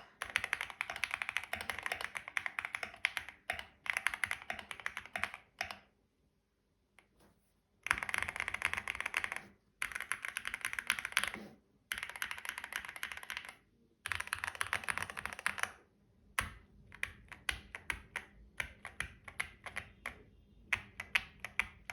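Typing on a QK75 custom mechanical keyboard with unlubed Gateron CJ linear switches, foam-modded case and plate, and Akko ASA-profile keycaps: several quick bursts of rapid keystrokes with short pauses between them, then slower, separate key presses near the end.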